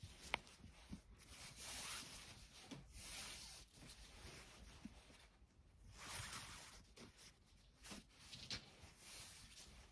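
Faint swishing and rustling of nylon paracord being pulled and slid through a metal D-ring, in several soft strokes, with a small sharp click about a third of a second in.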